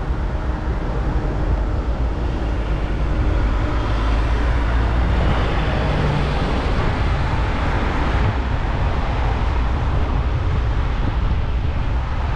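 Wind rushing over the microphone of a moving bike camera, a steady low rumble, mixed with city road traffic. A black taxi passes close by and the noise swells between about four and eight seconds in.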